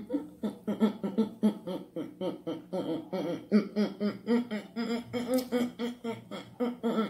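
A voice laughing in quick, evenly repeated pitched syllables, about four a second, that starts suddenly and keeps going.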